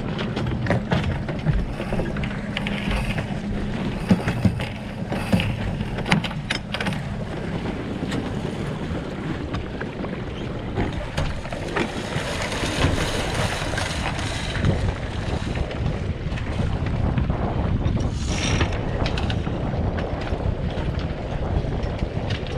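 Wind buffeting the microphone and water rushing along the hull of an Impulse 26 sailboat under way, with a stronger hiss swelling in the middle. Scattered clicks and knocks sound in the first few seconds.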